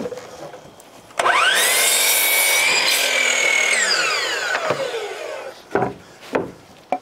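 Hitachi compound miter saw: the motor starts about a second in with a rising whine, the blade cuts the angled end off a lumber board, and the motor winds down with a falling whine. A few short knocks near the end.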